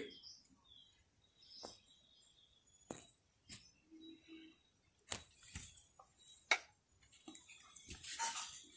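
Steel spoon clicking and scraping against a non-stick tawa as semolina dosa batter is poured and spread, a handful of sharp clicks spread through, with a faint hiss of batter on the hot pan near the end.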